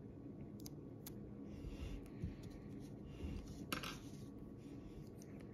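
Faint handling noises from metal tweezers: a few small clicks and soft knocks, the clearest a sharp clink a little before four seconds in, as a vinyl nail stencil is peeled off a fingernail.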